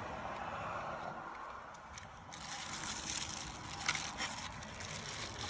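Plastic bag and cardboard parts boxes being handled, crinkling and rustling with a few light clicks, louder and hissier from a little over two seconds in.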